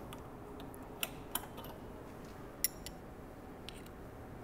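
A few sharp, light metallic clicks and ticks as the clutch cable end and lever pin are worked free of a Harley Sportster's stock clutch lever by hand. The loudest click, a little past halfway, has a short metallic ring.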